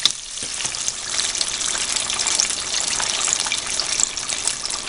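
Floured chicken pieces frying in hot oil: a steady sizzle thick with small crackling pops, dipping briefly right at the start.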